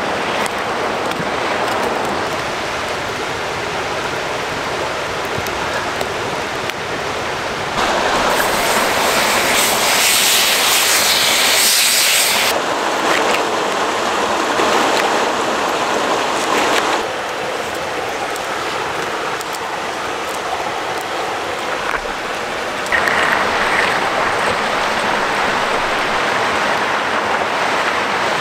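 Steady rush of running brook water, its level jumping up or down abruptly a few times.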